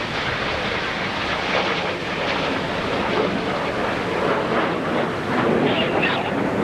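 Canadair CT-114 Tutor jet passing overhead, its single General Electric J85 turbojet giving a steady rushing jet noise.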